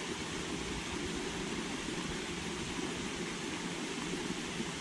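Steady, even rushing noise of outdoor ambience, with no distinct events.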